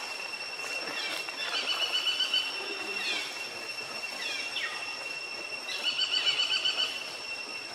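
Forest ambience: a steady high-pitched insect drone, with bird calls over it: several quick descending whistles and two rapid pulsing trills, about a second and a half in and again near six seconds, the second one the loudest.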